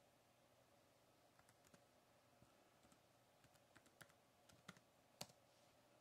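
Faint, irregular key clicks from a white MacBook's keyboard as a password is typed at the login screen, starting about a second and a half in, with a last, louder click about five seconds in.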